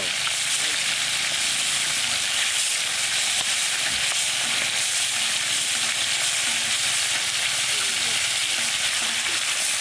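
Large whole fish deep-frying in a wide pan of hot oil: a steady, even sizzle with no pauses.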